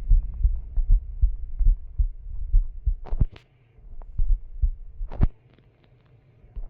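Irregular deep thumps and knocks, several a second, with a few sharp clicks about three and five seconds in.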